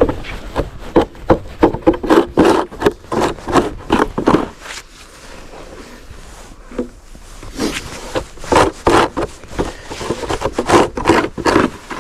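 Snow being scraped or brushed off a surface with a hand snow-clearing tool in quick repeated strokes, about three or four a second, in two bouts with a pause of a few seconds between them.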